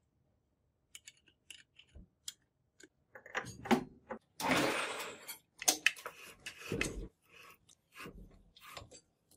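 Hand tapping a thread in a bored steel bar: light metal clicks as the steel tap is handled and set into the bore. About midway comes a run of louder scraping strokes as it is turned with a ratcheting spanner.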